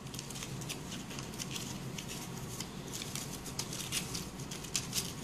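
Paper rustling and scraping as a paper strip is threaded in and out through slits in a paper sheet: light, irregular little ticks and scratches throughout.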